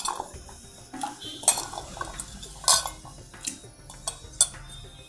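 Small sambar onions clinking against a stainless steel bowl as they are picked out and dropped into a steel pot of dal and water: a string of separate light clinks at irregular intervals.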